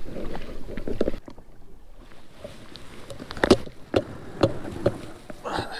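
A low rushing noise that cuts off about a second in, then a few scattered footsteps scuffing and knocking on shoreline rock and sand.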